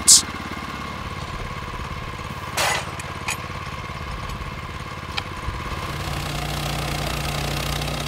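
Engine of a Norwood LumberMate LM30 portable band sawmill running steadily with no cutting load. A short scraping rasp comes about two and a half seconds in, with a few light clicks. The engine note becomes a little stronger and steadier about six seconds in.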